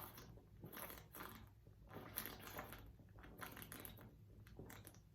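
Faint, irregular mouth and throat sounds, swallows and breaths, from a person holding back a burp after chugging beer.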